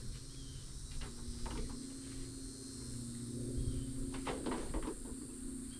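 Handling of a pop-up van canopy's fabric and poles: a few scattered rustles and knocks, the busiest about four seconds in, over a steady low hum and a constant high hiss.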